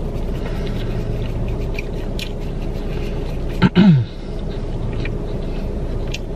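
Chewing with small wet mouth clicks over the steady low hum of the car. About three and a half seconds in comes one short, loud, low vocal sound from the eater that falls in pitch.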